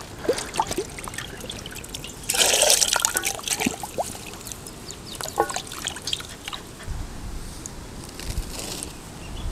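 Water pouring and splashing as a whole raw chicken is washed by hand, with a louder splash a little over two seconds in.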